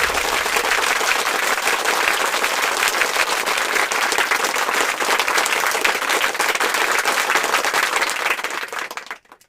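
Crowd applauding, dense steady clapping from many hands that fades out near the end.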